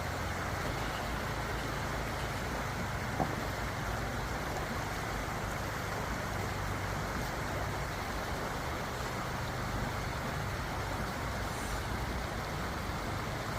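Truck engine idling steadily, with one faint click about three seconds in.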